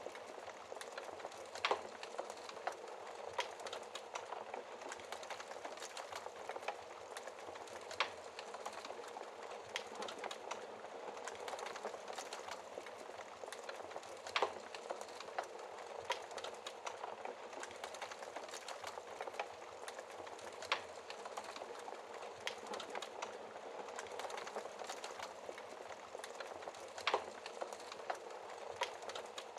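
Wood fire in a fireplace crackling: a steady hiss of small crackles, with about five louder sharp pops spread evenly through it.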